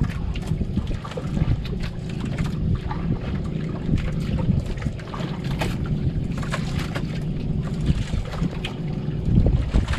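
Wind rumbling on the microphone over a faint steady hum, with scattered light clicks and clatters of a ladle, pot and bowl being handled at a portable stove.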